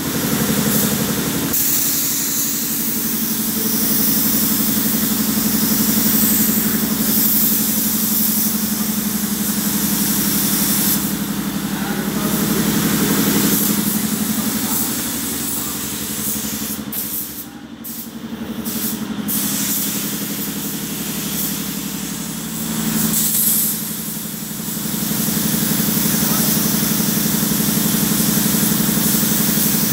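Air spray gun hissing as it sprays paint onto a vehicle's side panels, over a steady machine hum; the hiss stops briefly a little past halfway, then resumes.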